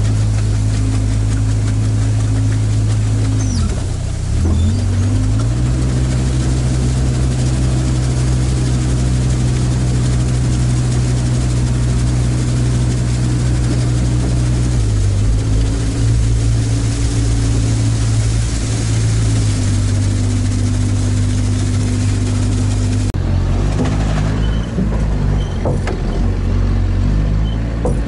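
Engine of a Sherp-type amphibious all-terrain vehicle heard from inside its cab as it swims across a lake, running steadily. Its note dips and picks up again about four seconds in and drops a little about halfway through. Near the end it changes abruptly to a different, rougher engine drone.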